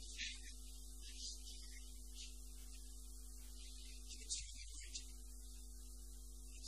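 Low electrical mains hum with hiss under a few quiet steady held tones that drop out briefly about four and a half seconds in.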